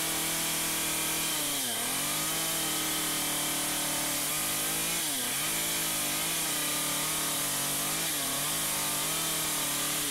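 Stihl MS 193 C two-stroke chainsaw running near full throttle while carving into green wood. Its pitch dips briefly and recovers three times, about two, five and eight seconds in, as the chain loads up in the cut.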